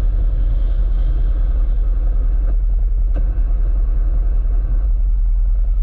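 A Can-Am off-road vehicle running along a trail: a steady, loud engine-and-rumble noise, with two faint ticks about two and a half and three seconds in.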